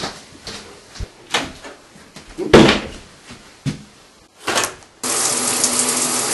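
Scattered knocks and steps with one louder thump, then a shower head starts spraying water suddenly about five seconds in, a steady hiss.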